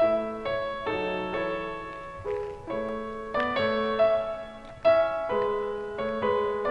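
Background piano music: a slow melody of single struck notes and chords, each note fading after it is struck.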